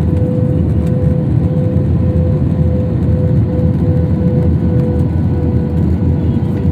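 Batik Air jet airliner during landing: a steady, loud low rumble of engines and airflow with a constant hum over it.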